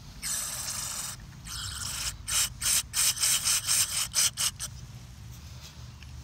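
Hissing blasts from a nozzle cleaning out carburetor parts: one long blast, a shorter one, then a quick run of short blasts at about four a second.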